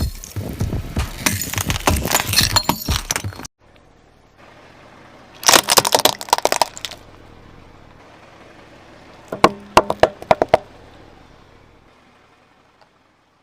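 Car tyre rolling over and crushing brittle objects: dense crackling and snapping that cuts off abruptly, then two shorter bursts of sharp cracks with a faint low hum between.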